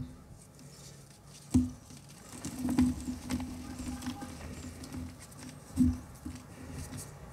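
Hands crushing blocks of reformed gym chalk in a plastic tub of chalk powder: crumbly crunching with soft patter between. The loudest crunches come about a second and a half in, near three seconds and near six seconds.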